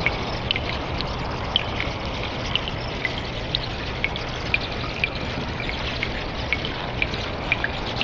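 Cave ambience of dripping water: clear drops plinking about twice a second over a steady trickle of running water.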